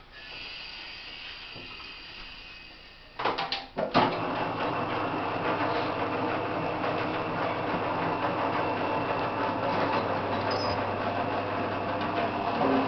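MC-Bait Roller boilie rolling machine starting up about four seconds in, after a few knocks. Its electric motor and rollers then run steadily with a low hum.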